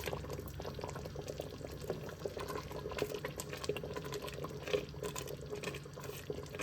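Pot of blueberry jam bubbling and popping as it comes back up to the boil after the pectin has gone in, with many small irregular pops.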